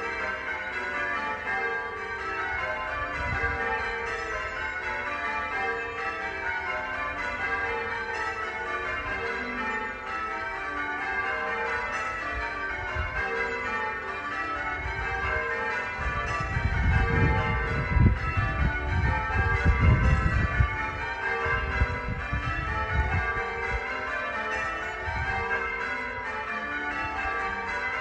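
Church bells ringing in a continuous peal, many bells striking one after another with their tones overlapping. A low rumble joins in for several seconds about two-thirds of the way through.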